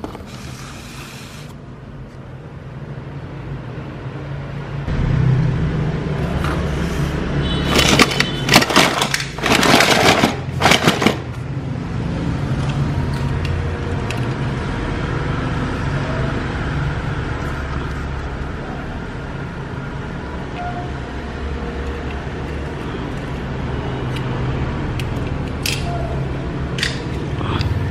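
Die-cast toy vehicles clattering and knocking against each other in a cardboard box as they are rummaged through. The rattling comes in a burst of sharp knocks a few seconds in, with a couple more clicks near the end, over a steady low hum.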